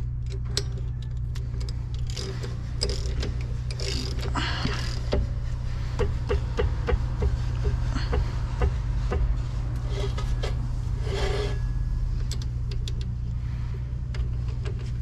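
Socket ratchet clicking as it is worked on the front wheel bearing nut, tightening it down on the spindle, with a run of evenly spaced clicks in the middle. A steady low hum runs underneath.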